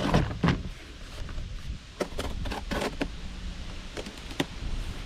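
A cardboard parts box being opened by hand: a few rough tearing and scraping sweeps, then several sharp clicks and knocks near the end.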